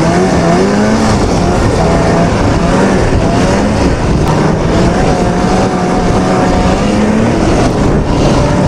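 Arctic Cat Panther 570 snowmobile's two-stroke twin engine running under way at a steady cruise, its note rising and falling slightly as the throttle varies.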